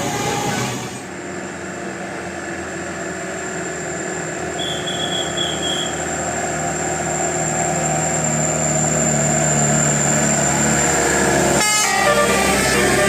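A bus's 'telolet' multi-tone horn plays a short tune at the start. Then the bus's engine runs and grows steadily louder for about ten seconds. Near the end the telolet horn tune starts again.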